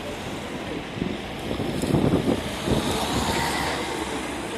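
Distant jet aircraft roar, swelling about two seconds in and then easing, with wind buffeting the microphone.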